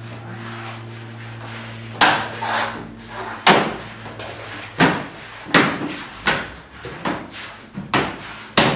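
Replacement tailgate spoiler on a Dodge Ram being pressed down onto the tailgate top, its mounting clips snapping into place. A series of about eight sharp knocks and snaps starts about two seconds in.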